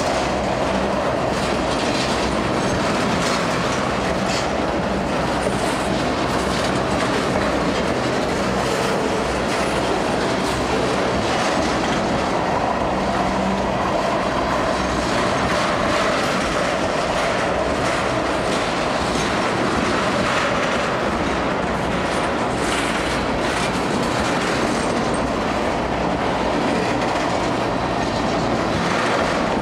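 Loaded ethanol tank cars rolling past close by: a steady rumble of steel wheels on the rails, with a clickety-clack of wheels over the rail joints.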